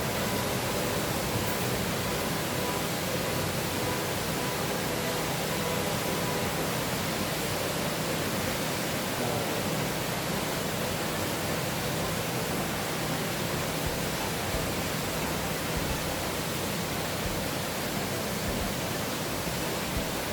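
Rain falling steadily: an even, unbroken hiss with no thunderclap in it.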